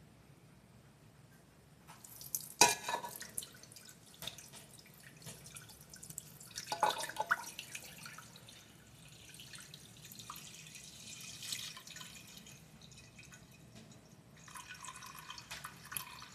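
Liquid is poured in a thin stream from a stainless steel cup into a stainless steel pot, trickling and dripping. A sharp knock about two and a half seconds in is the loudest sound, and there is a second cluster of knocks around seven seconds.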